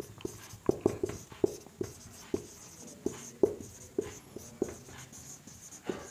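Marker pen writing on a whiteboard: a quick, irregular run of short strokes and taps as the tip moves across the board.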